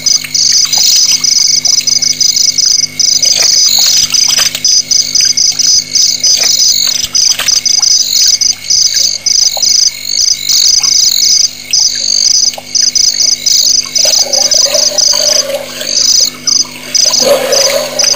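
Loud night chorus of insects and frogs: rapid, high-pitched pulsing trills without a break. Near the end a lower splashing of water comes in as the elephant drinks, lifting water to its mouth with its trunk.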